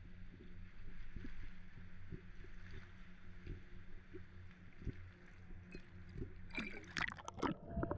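Harbour water sloshing against a waterproof camera held at the surface, over a steady low hum. Near the end comes a burst of loud splashing and crackling as the camera dips into the water.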